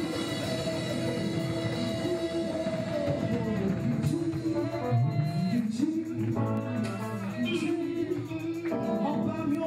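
Live gospel music: women singing into microphones over band accompaniment, with long held and gliding sung notes.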